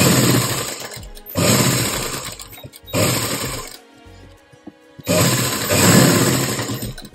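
Sewing machine stitching a seam through cotton fabric, running in short bursts. It pauses for about a second in the middle while the fabric is turned, then runs again for about two seconds.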